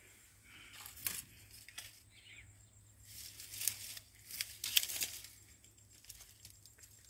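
Faint, intermittent rustling and crackling, with a few sharper crackles around the middle.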